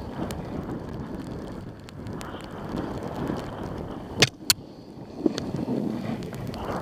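Snow scraping and hissing under a rider sliding downhill, in uneven swells, with wind buffeting the microphone. A little past four seconds in come two sharp clicks in quick succession, and a smaller knock about a second later.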